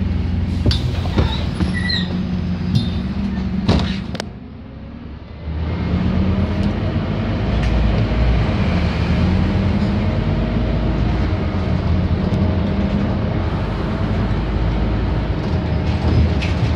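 Bus engine and road noise heard from inside the moving bus, a steady low hum with the engine note rising and falling. A few sharp knocks and rattles come in the first four seconds. About four seconds in the sound briefly drops away, then the engine pulls again.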